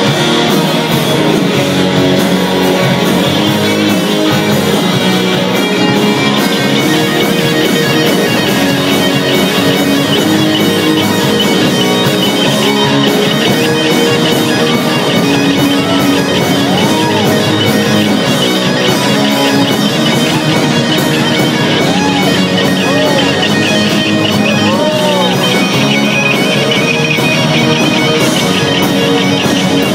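Rock band playing live, with guitar to the fore. Through the middle a few notes are bent up and back down.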